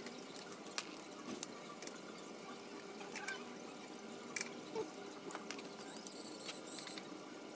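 Faint, irregular metallic clicks and taps of a hand wrench on the rear shock absorber's lower mounting bolt, a dozen or so spread over several seconds, over a low steady background hiss.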